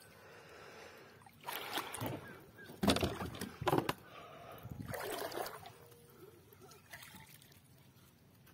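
Water splashing and sloshing against a kayak hull, in several short bursts, mixed with knocks and rattles of gear being handled on the kayak.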